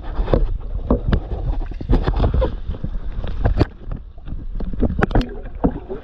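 Stand-up paddleboard paddle strokes, with water splashing irregularly against the blade and board over a steady wind rumble on the microphone.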